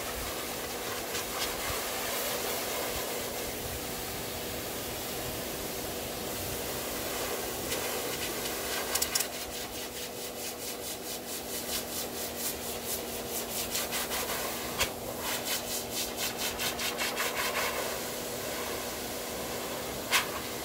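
High-velocity pet dryer running steadily, a motor hum under the rush of air, as its blast is worked through a Great Pyrenees' thick coat. Through much of the middle the air on the fur gives a rapid, uneven rubbing flutter, with a few sharp knocks.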